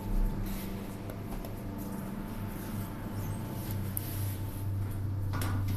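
A steady low mechanical hum with camera-handling rustles and scrapes, a bump just after the start and a brief scuffle of noise about five seconds in.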